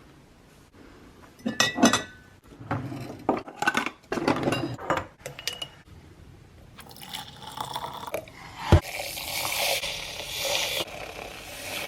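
Glass and utensils clinking and knocking while a matcha drink is made. Near the end there is one sharp knock, then about two seconds of liquid being poured.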